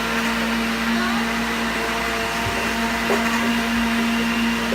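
Electric blender running steadily, its motor humming at a constant pitch as it blends liquid cake batter.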